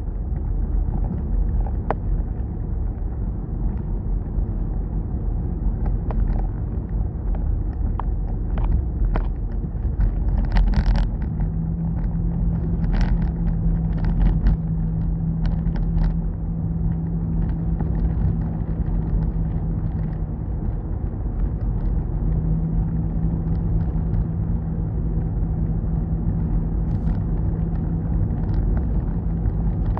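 A car driving at steady speed, heard from inside the cabin: a continuous low rumble of engine and tyre noise. A steady low hum joins in about a third of the way through, drops out briefly, then returns. A few faint ticks and knocks come through now and then.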